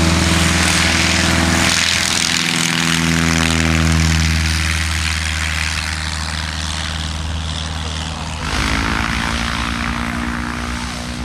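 Piper Super Cub light airplane's piston engine and propeller running at high power, a steady drone with propeller hiss. The sound changes abruptly about eight and a half seconds in.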